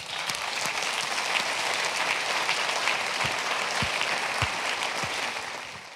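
Audience applauding: a dense, steady patter of many hands clapping that fades out near the end.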